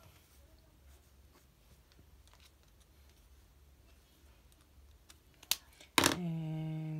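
Faint scratching of a felt-tip marker inking on paper, with small clicks. Near the end comes a sharp click, then a loud click and a person humming a steady low 'mmm' for about a second.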